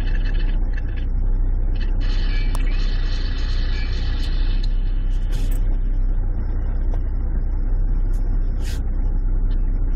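Car engine idling, a steady low rumble heard from inside the parked car. A high-pitched buzz joins it from about two seconds in for a couple of seconds.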